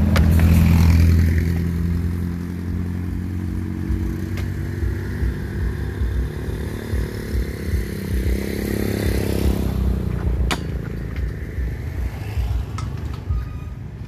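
Motor vehicles passing along the road close by: engine noise is loudest at the start and fades, and a second vehicle swells and falls away about six to ten seconds in. A single sharp knock comes about ten and a half seconds in.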